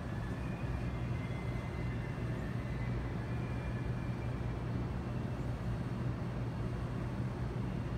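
Steady low droning hum of building ventilation filling a large empty mall interior, with faint high tones in the first half.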